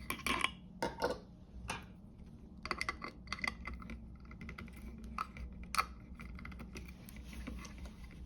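Pliers and other metal hand tools being handled, with light clicks and clinks at irregular intervals.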